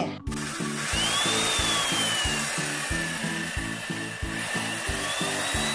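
Background music with a steady beat over the steady whir of an electric chainsaw running with no load, with a faint whine that rises and falls in pitch twice.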